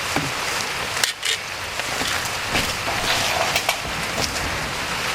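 Steady rain hiss with scattered taps and knocks through it.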